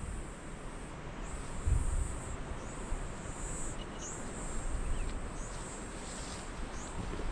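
Bird calls: short, thin, high chirps that fall in pitch, repeated many times at an uneven pace over a steady background hiss. A low rumble swells about two seconds in.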